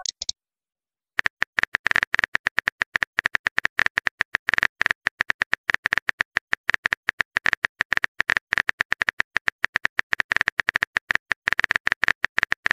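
Keyboard typing clicks of a texting app, fast and irregular, many taps a second, starting about a second in as a message is typed out.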